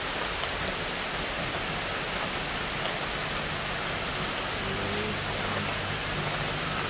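Heavy rain pouring steadily, a dense even hiss of downpour on leaves and ground.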